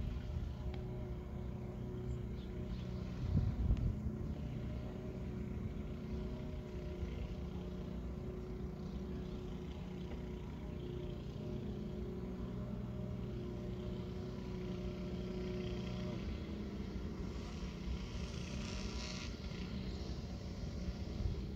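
A steady low mechanical hum, as of a motor or engine running, with a dull thump about three and a half seconds in and a brief hiss near the end.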